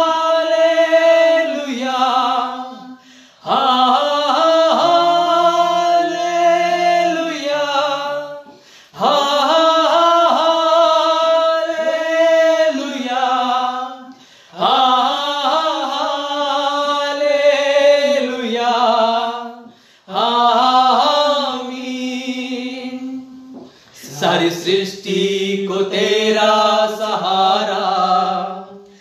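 Men singing a Hindi Christian worship song without accompaniment, in long held phrases with short pauses for breath between them. A lower harmony voice joins partway through and again near the end.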